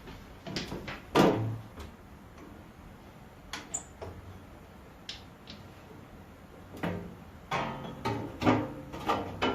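Clunks and clatter from a drill press: the hinged belt guard being handled and the belt being shifted on the pulleys to raise the spindle speed. The knocks come singly, the loudest about a second in, and a denser cluster near the end.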